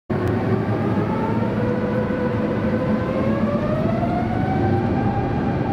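Jet engine running: a steady rumble with a whine that rises in pitch about halfway through, then holds.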